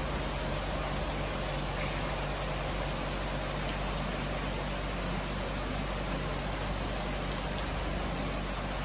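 Steady rain falling on a wet paved street, an even hiss that neither builds nor fades.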